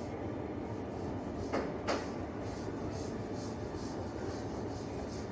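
Plastic bottom cover of a Lenovo IdeaPad 3 laptop being pressed onto its base: two sharp clicks close together about a second and a half in, over a steady background hiss.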